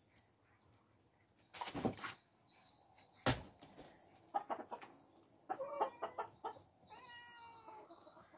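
Backyard hens and a cat at feeding time: scattered short clucks and clicks, a brief rustle about two seconds in, a sharp click just after three seconds, and a drawn-out pitched animal call near the end.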